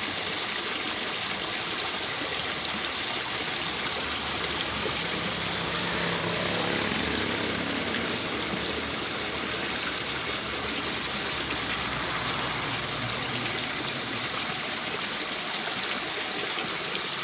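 Steady rush of water pouring into a fish pond from a pump's outflow.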